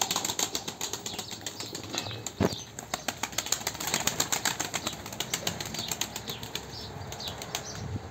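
Mardin play pigeons' wings flapping in quick, repeated claps as birds take off and land, with one louder thump about two and a half seconds in.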